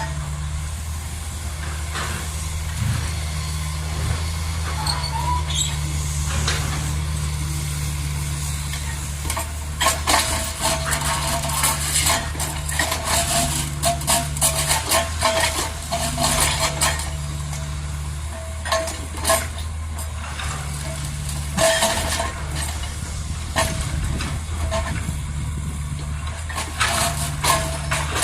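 Kobelco SK200 hydraulic excavator working: its diesel engine running steadily, with frequent metallic clanks and knocks that grow busier from about ten seconds in.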